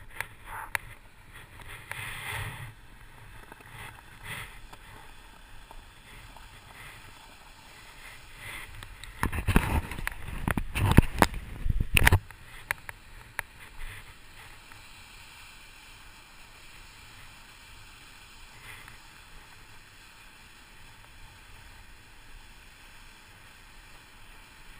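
Surly Mukluk fat bike rolling over packed snow: steady tire and riding noise, with a loud stretch of rumbling and knocks from about nine seconds in, lasting about three seconds.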